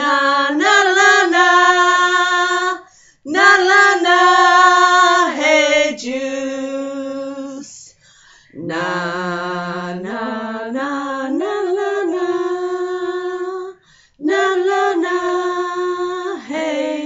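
A woman singing long held notes in a song's outro, in four phrases broken by short pauses about 3, 8 and 14 seconds in.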